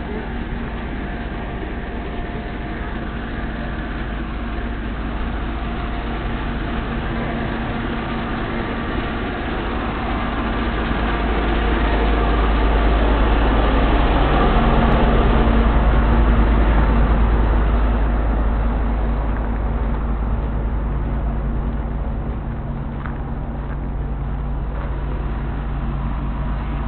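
Fire engine's diesel engine running steadily with a low hum. It grows louder for a few seconds midway as the truck is passed close by, then eases back.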